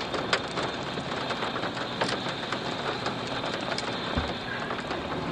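Rain falling on the car, a steady hiss with scattered sharp ticks from drops and hail striking the body and glass.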